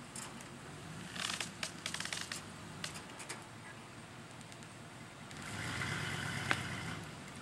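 Pickup truck engine pulling on a stump through a wire-rope cable and snatch blocks. A run of sharp crackling clicks comes about a second in. Near the end the engine rises under load for a couple of seconds, with one sharp snap.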